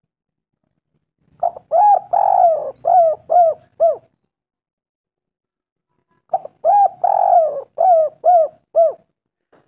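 Spotted dove cooing: two calling phrases about two seconds apart, each a short note, then a long drawn-out coo, then three quick arched coos.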